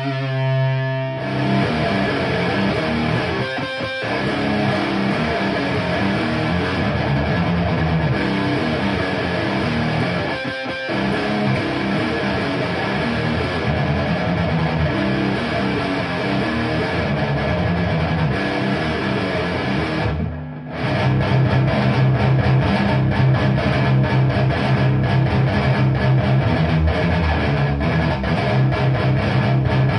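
Electric guitar with DiMarzio Fred pickups played through a Framus Cobra 100 W valve head and a Marshall MF400A cabinet with Celestion G12-K100 speakers. The guitar riffs continuously, breaks off briefly about twenty seconds in, then comes back louder with a heavier low riff.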